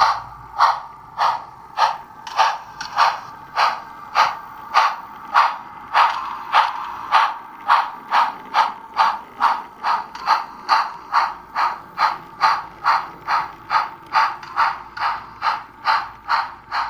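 Steam exhaust chuffs from the onboard DCC sound decoder and speaker of a Bachmann Spectrum HO scale 2-10-0 Russian Decapod model locomotive under way. The beat is even and quickens from about two chuffs a second to about three as the locomotive gathers speed.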